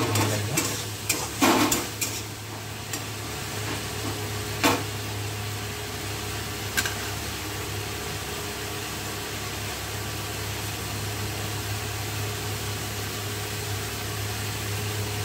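Steel spatula scraping and knocking against an iron wok for the first two seconds, then a few single knocks, over a faint sizzle of onion-tomato masala frying. A steady low hum runs underneath throughout.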